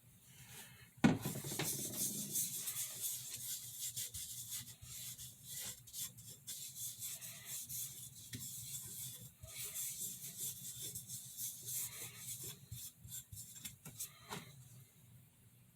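Steel utility-knife blade being stroked repeatedly across a Norton medium-grit (240) sharpening stone, a continuous scraping rasp. It starts abruptly about a second in and stops about a second before the end.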